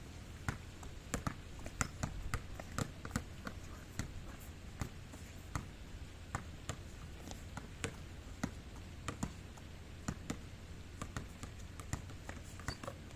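Irregular light clicks and taps, several a second and uneven in spacing, over a steady low rumble.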